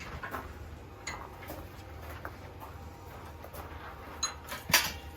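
Irregular light clinks and taps of metal tools and iron stock being handled at the forge, with one sharper metallic strike near the end.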